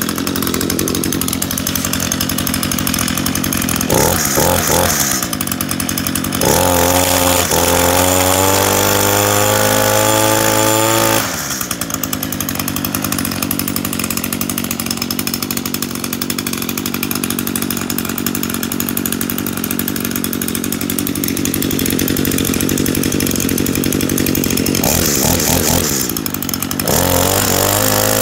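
Shindaiwa T235 21cc two-stroke string trimmer engine idling steadily, blipped briefly about four seconds in. From about six to eleven seconds in it is held at high revs, pitch climbing, then drops back to idle. It revs again near the end.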